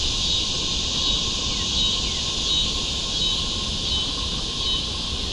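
Insects droning steadily in the bayou, with a high chirp repeating about every half second, over a low rumble.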